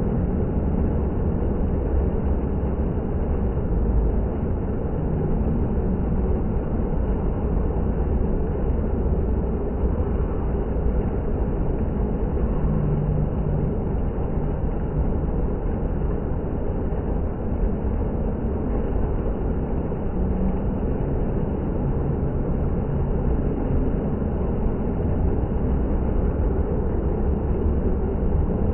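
Water fountain running, a steady rushing noise with a heavy low rumble.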